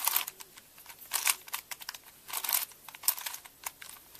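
Layers of a Crazy 3x3x3 Plus Venus puzzle cube being turned by hand: a string of short, irregular plastic clicks and rasps, one per turn, as a sune with middle-slice turns is carried out.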